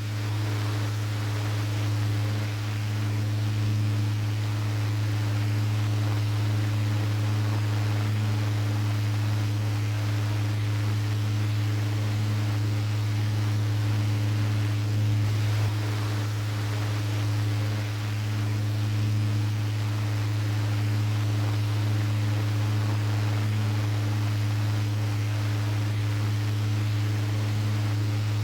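Restored 12V mini desk fan running steadily after cleaning and lubrication of its once-jammed motor: a low, even motor hum under a steady rush of air from the blades.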